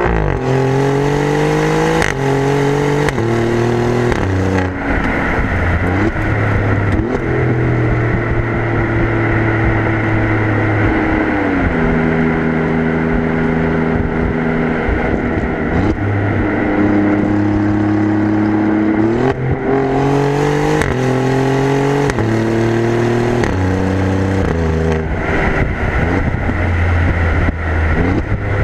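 Exhaust of an Alfa Romeo Giulia Quadrifoglio's Ferrari-derived 2.9-litre twin-turbo V6, heard from the rear of the car. It accelerates hard through several quick upshifts, settles to a steady cruise with a downshift midway, then makes a second hard pull through the gears near the end.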